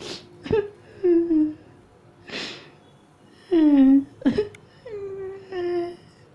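A person whimpering and sobbing: several short moaning cries that fall in pitch, broken by sharp sniffs, the loudest cry about halfway through.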